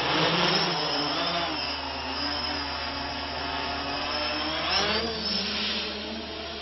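Hexacopter's six motors and propellers whirring in flight, the pitch of the whine sliding up and down as the motor speeds change.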